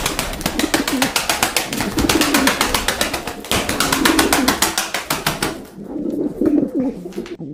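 Pigeons cooing in low, warbling calls over a fast, even clatter of short strokes that fades out about six seconds in.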